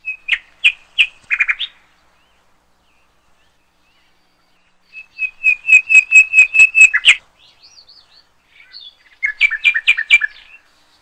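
A small bird chirping in three bouts of quick, sharp high notes. The longest bout, about two-thirds of the way in, is a run of about ten rapid chirps that ends abruptly.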